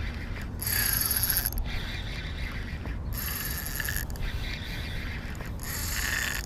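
Kastking Kodiak 3000 spinning reel being cranked while playing a hooked fish, its gears whirring. Three loud high buzzing bursts come about two and a half seconds apart, over a low steady rumble.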